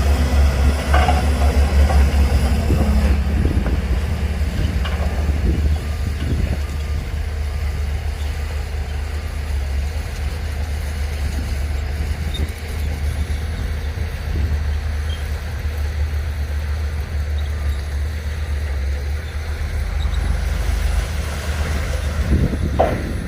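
Heavy diesel engine of earthmoving machinery running with a deep, steady rumble, heavier in the first few seconds, with a few short knocks.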